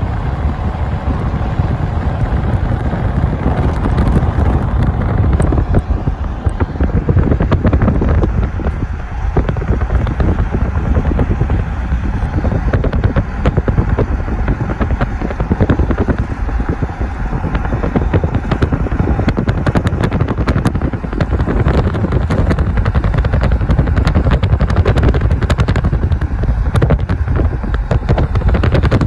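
Road noise from a moving car, with heavy wind buffeting on the microphone: a loud, dense low rumble full of crackles.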